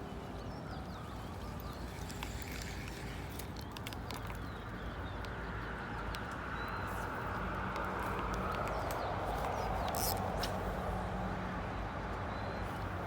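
Open-air ambience: a steady rushing noise, like wind on the microphone, swelling during the second half, with a few faint short bird chirps and scattered light clicks.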